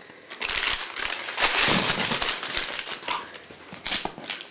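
Foil condom wrappers crinkling as they are handled, in irregular bursts that are densest in the middle.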